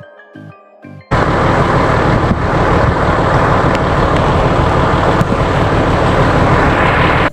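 A second of electronic music with a steady beat, cut off by loud, rough vehicle noise: an off-road vehicle's engine running with a low rumble, mixed with tyre and wind noise. The noise stops abruptly near the end.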